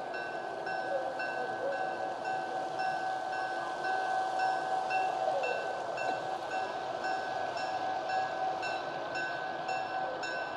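Railroad bell ringing in an even rhythm, about two strokes a second, over a steady pitched hum and the rumble of the train.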